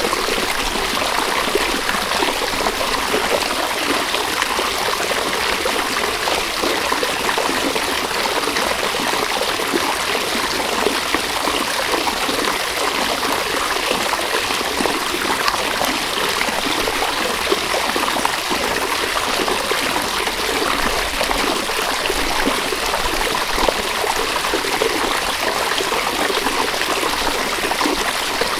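River water running steadily over stones, a continuous rushing and trickling.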